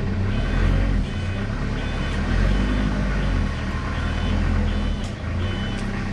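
A diesel engine runs steadily with a low rumble. Over it, a vehicle's reversing alarm repeats short, high beeps, about one every three quarters of a second.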